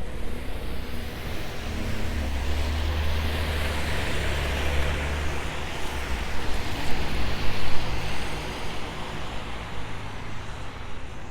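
Traffic on a city street: a vehicle passes, its tyre hiss and low engine rumble swelling to a peak and fading over several seconds, followed by steadier road noise.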